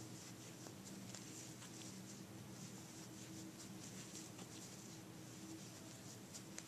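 Faint scratching and rustling of a metal crochet hook pulling yarn through single crochet stitches, in small irregular ticks, over a low steady hum.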